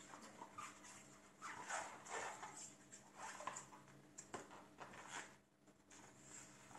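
Quiet rustling of a paper user-guide booklet and gloved hands as it is lifted from a cardboard box and opened, in short irregular scuffs with a light tap a little past four seconds in. A faint steady hum lies underneath.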